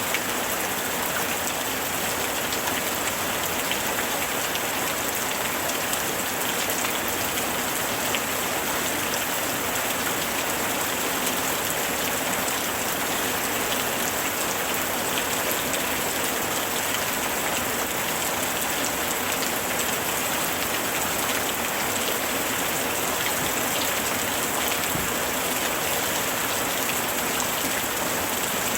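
Steady summer rain falling, a dense hiss of raindrops pattering on a surface with fine individual drop ticks, even in level throughout.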